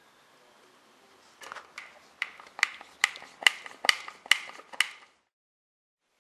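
A quick series of about ten sharp taps or clicks, two or three a second, each with a short ring. They stop suddenly about five seconds in.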